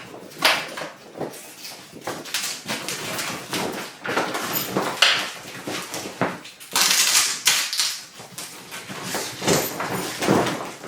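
Heavy waterproof PVC duffel bag being handled while its Velcro closure is fastened: irregular rustling, creasing and scraping of the stiff material, with a louder, rasping burst about seven seconds in.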